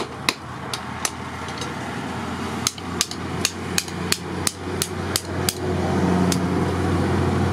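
Hand hammer forging red-hot rebar on a steel anvil: three blows, a pause of about a second and a half, then a quick run of about ten sharp ringing strikes at roughly three a second, with one more near the end.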